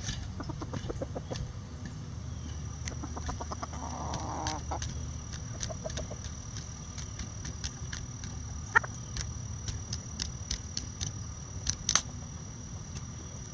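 Bantam chickens clucking softly in short runs while pecking at a hanging cabbage and corn treat, with sharp peck clicks scattered throughout; the loudest is a single sharp click about nine seconds in.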